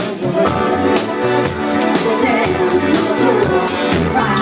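Live cover band playing an upbeat song, heard as a direct sound-desk mix: a steady drum-kit beat over a bass line and chording instruments.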